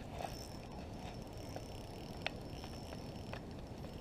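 A fishing reel being worked while a hooked bass is fought, heard faintly over steady outdoor background noise, with a few light ticks.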